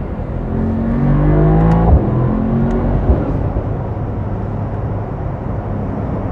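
Mercedes-AMG SL63's twin-turbo V8 accelerating, heard from inside the cabin: the engine pitch rises for about a second and a half, a sharp crack of a gear change comes about two seconds in, the pitch climbs again briefly, then it settles to steady running with road noise.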